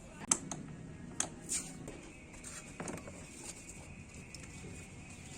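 A handful of short, sharp clicks and knocks, the loudest about a third of a second in and the rest spread over the next two and a half seconds, over a faint steady low hum.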